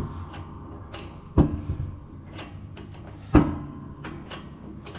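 Shop press pressing the bearing off a GM 10-bolt pinion gear held in a bearing splitter: sharp metallic clunks about two seconds apart, each ringing briefly, with lighter clicks between.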